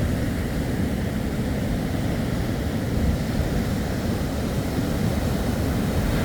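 Steady low rumble of wind buffeting the microphone, mixed with sea surf.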